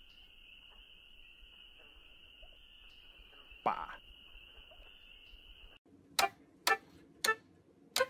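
American woodcock giving one short nasal, falling peent call about halfway through, over a steady high-pitched insect drone. Near the end, after a cut, a few short sharp keyboard notes about half a second apart as a cockatoo pecks the keys of a toy keyboard.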